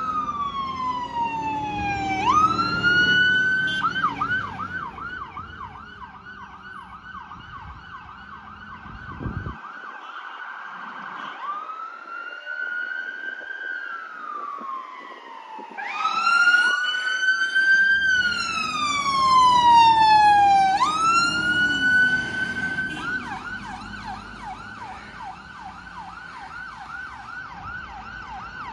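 Fire engine electronic sirens sounding on a turnout, slow wails sweeping down and up in pitch and switching at times to a fast, rapidly repeating warble. Engine rumble runs underneath at the start and again about two thirds of the way in, where the sirens are loudest.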